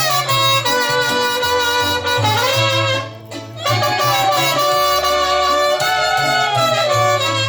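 Live band playing the instrumental introduction of a ranchera, horns carrying the melody over a bass line, with a brief break about three seconds in.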